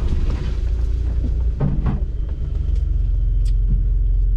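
Off-road 4x4's engine running low and steady, heard from inside the cabin as it crawls along a rough dirt track, with a couple of knocks from the vehicle going over bumps a little before two seconds in.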